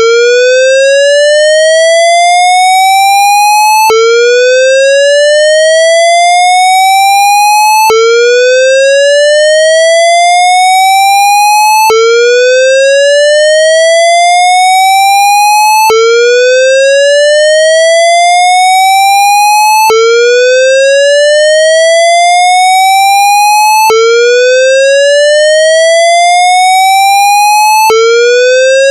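Electronic fire-alarm whoop tone, a synthesized square-wave recreation of the Siemens MXL-V voice-evacuation whoop. A buzzy tone rises from about 440 to 880 Hz over four seconds, drops back at once and rises again, repeating about seven times.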